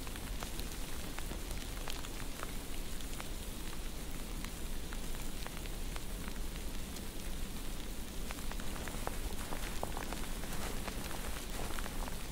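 Added sound-effect ambience: a steady rain-like hiss with many scattered crackles over a constant low hum.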